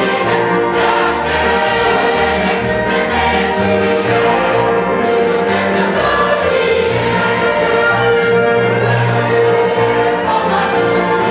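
Mixed choir of women and men singing together in harmony, holding long notes.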